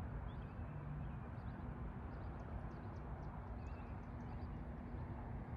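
Steady, fairly quiet outdoor background noise with a low steady hum and a few faint, short high chirps of small birds.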